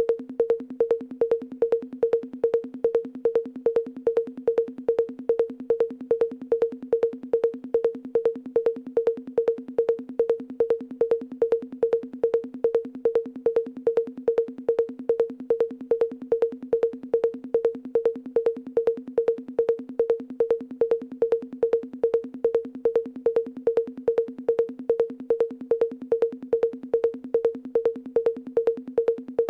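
Electronic percussion loop: a short pitched hit repeats at a perfectly even pace, a little over twice a second, without change, over a faint low thump.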